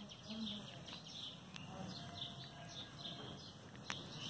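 Birds chirping repeatedly in short calls, with two sharp clicks, one about one and a half seconds in and one near four seconds.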